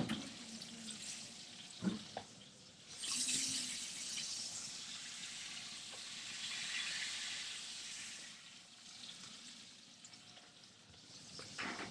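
Flounder fillets frying in hot vegetable oil in a skillet: a sizzle that swells suddenly about three seconds in, holds for about five seconds, then dies back to a faint sizzle.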